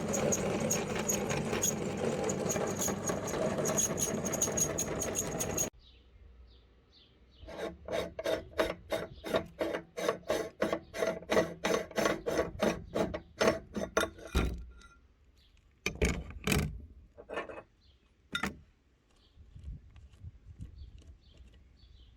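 Meat grinder crushing and grinding chalk: a dense, continuous grinding that stops abruptly about six seconds in. After a pause comes a run of rhythmic rasping strokes, about two or three a second, then a few single scrapes.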